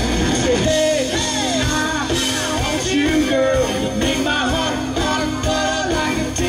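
Live country band playing through a PA: a man singing lead over acoustic guitar, mandolin, bass and drums.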